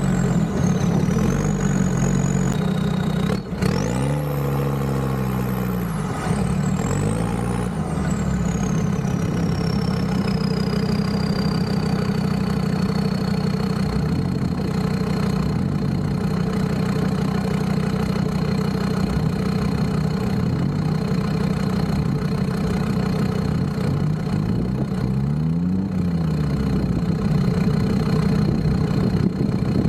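Off-road 4x4 engine running at idle, revved briefly a few seconds in and again near the end. A thin high whine climbs sharply with the first rev, then slowly falls and holds a steady pitch.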